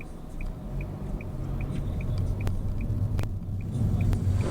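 Low rumble of a car driving, growing slightly louder. A faint high tick repeats about twice a second, and two sharp clicks come in the middle.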